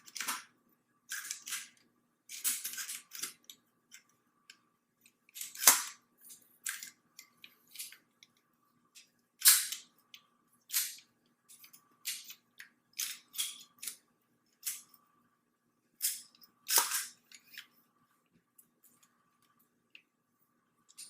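Steel parts of a TriStar Raptor 12-gauge semi-auto shotgun being handled and fitted back together during reassembly: an irregular string of sharp metallic clicks and clacks, three of them louder than the rest, over a faint steady hum.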